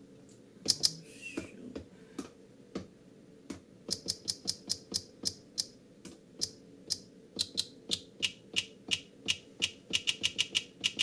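Short, bright clicking hits tapped out on a Maschine Plus, sparse and uneven at first, then a quicker run of about three or four a second from about four seconds in: makeshift hi-hat sounds being tried out on the pads.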